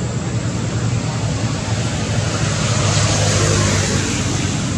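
Steady low hum under an even hiss of background noise, swelling a little about three seconds in.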